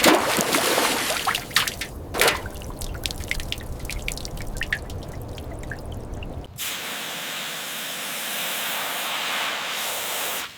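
Splashing and dripping water with scattered clicks, then at about six and a half seconds a switch to a steady spraying hiss that cuts off abruptly near the end.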